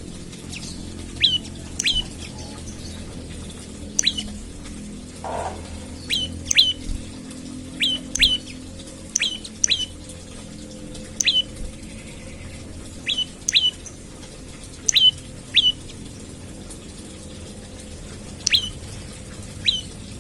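Prenjak lumut calling again and again: short, sharp notes, mostly in quick pairs, a second or two apart, over a faint steady low hum.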